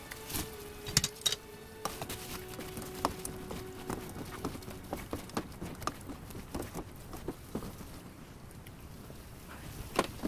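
Spatulas knocking and scraping against a nonstick wok as fried mackerel pieces are tossed in thick sauce, in irregular clacks, the loudest about a second in and again near the end.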